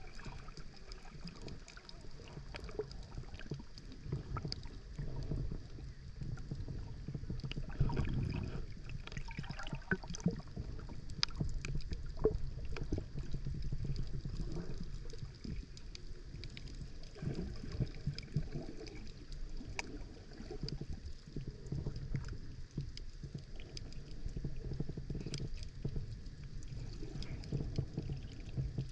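Muffled underwater sound from a camera held below the surface: low water rumble and gurgling with scattered sharp clicks.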